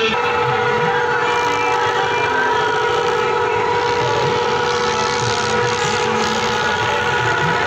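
Ghazi tractor's diesel engine running steadily at full throttle while dragging a heavily loaded sledge, a continuous drone with held steady tones over a rough low rumble.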